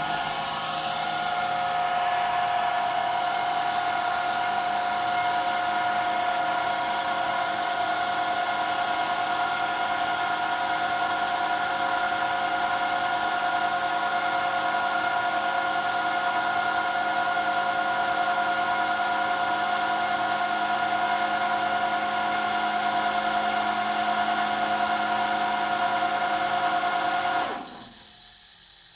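Sullair 6E10H 10 hp rotary screw air compressor running with a steady whine. Near the end the motor stops and a hiss of air takes over as the compressor blows down.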